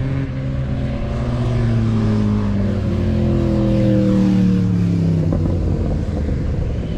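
A group of motorcycles riding past, several engines running at once, their pitch falling as they go by; loudest about four seconds in.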